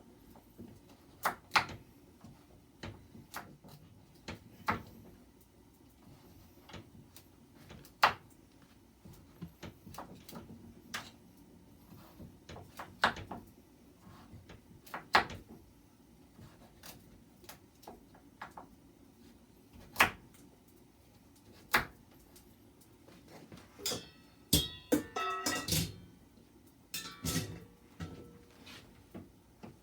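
Kitchen knife cutting butternut squash into small pieces on a cutting board: sharp, irregular knocks every second or two, with a quick cluster of clattering knocks with a brief ringing about three-quarters of the way through.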